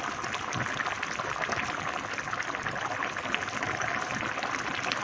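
Squash and moringa stew boiling in a pan: a steady bubbling with many small pops.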